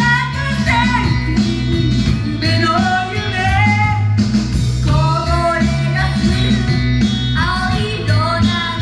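Loud live pop-rock idol music: female voices singing the melody over a band-style backing with steady bass and guitar.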